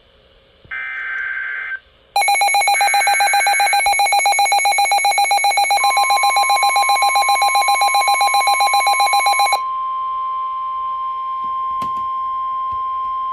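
Emergency Alert System tones for a severe thunderstorm warning. A burst of buzzing digital SAME header data comes first, then the loud two-tone EAS attention signal, pulsing rapidly, with another data burst under it at the start. About six seconds in the steady single-pitched NOAA Weather Radio warning tone joins; the two-tone signal stops about nine and a half seconds in and the single tone runs on, with a click near the end.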